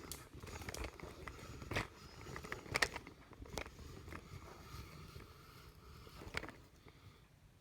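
Faint handling noise: a few light clicks and knocks over a low rumble, with no machine running.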